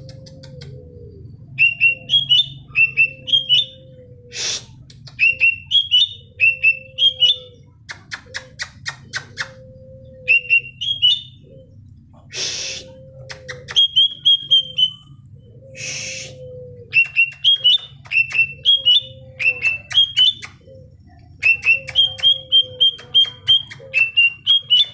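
Cucak ijo (green leafbird) singing: quick repeated phrases of rising chirps, each with a lower whistled note. Three short harsh hissing notes break in between the phrases.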